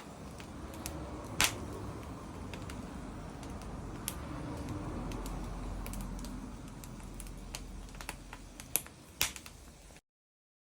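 Wood fire crackling and popping, with a steady low rush of burning underneath. Sharp pops stand out about one and a half seconds in and again in a cluster near the end.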